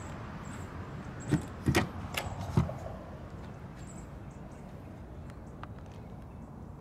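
Fuel filler door of a Mercedes-Benz GLB being pressed and popping open: three sharp clicks between about one and a half and two and a half seconds in, over a steady background hiss.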